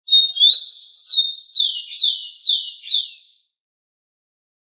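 Rufous-collared sparrow (tico-tico) singing one song. It opens with a whistle that rises, followed by five quick down-slurred whistles at about two a second.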